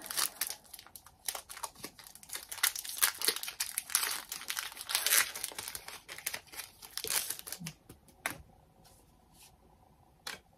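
Foil wrapper of a Pokémon trading card booster pack crinkling as it is torn open and the cards are pulled out. The crinkling stops about eight seconds in, and a single click follows near the end.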